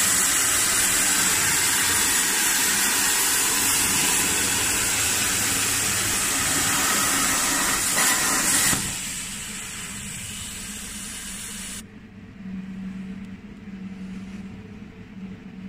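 Plasma torch of an HTP1325 CNC plasma cutting table cutting metal plate: a loud, steady hiss of the arc and its air jet. It stops abruptly about nine seconds in, leaving a much quieter, faint low hum.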